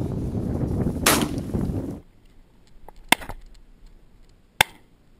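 Shotgun shots fired at a flushing game bird: one shot about a second in over wind and brush noise, then, after the background drops away suddenly, two sharp cracks about a second and a half apart.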